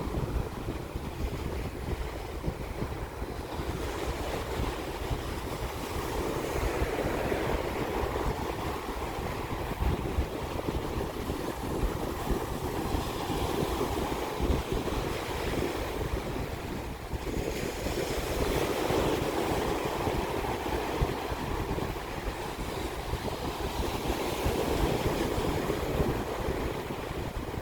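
Ocean waves washing onto the shore, swelling and falling back about every five or six seconds, with wind rumbling on the microphone.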